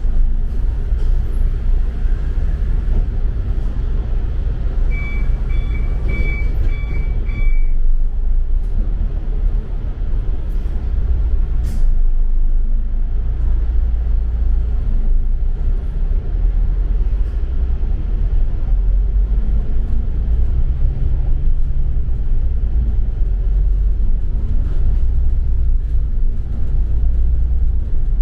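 Deep, steady engine and road rumble of a double-decker bus heard from inside the passenger cabin. About five seconds in, a run of about six short electronic beeps at one pitch sounds over it for roughly three seconds.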